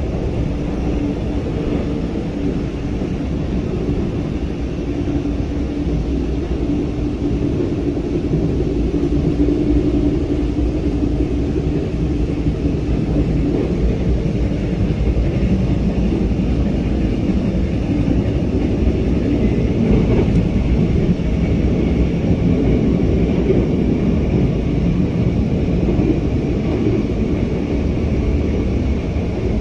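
Steady rumble of a train running at speed, heard from inside the passenger carriage, with wheel-on-rail noise and a faint steady hum that fades after the first half; it grows a little louder about eight seconds in.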